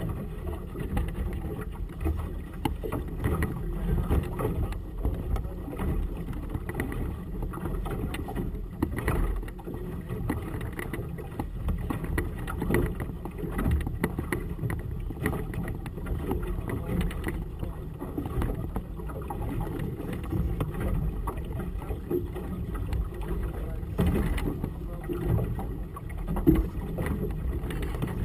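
Gusty wind buffeting the microphone of a camera on a small boat in choppy water: an uneven low rumble that rises and falls.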